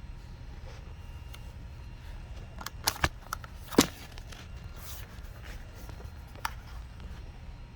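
A few sharp clicks and knocks of a portable jump starter pack being handled, as when it is picked up and its buttons are pressed. They come in a quick cluster about three seconds in, with the loudest near four seconds and a single click near the end, over a steady low hum.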